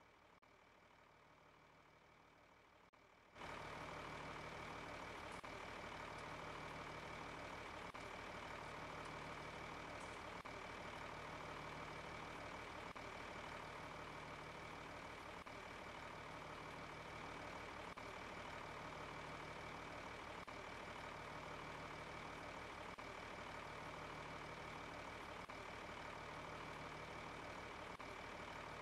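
Combine harvester engine running steadily, with a steady high whine and a slow low pulsing; it comes in abruptly about three seconds in after a faint start.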